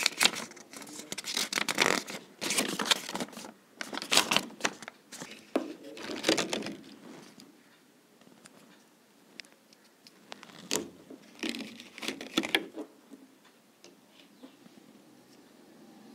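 Clear plastic packaging and a paper instruction leaflet crinkling and rustling as they are handled, in irregular bursts, with a quieter stretch in the middle and another cluster of rustles a few seconds later.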